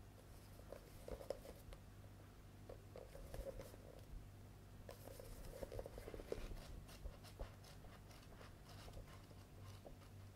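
Faint paper rustling and soft taps as paperback manga volumes are handled and their pages riffled by hand, in small irregular bursts.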